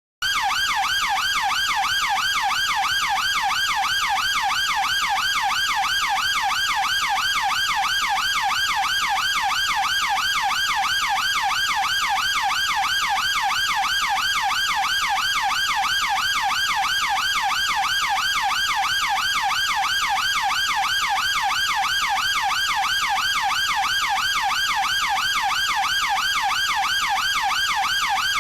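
British police car siren in its fast yelp setting: a rapid rising-and-falling wail that repeats a few times a second at a steady level. It starts abruptly out of silence.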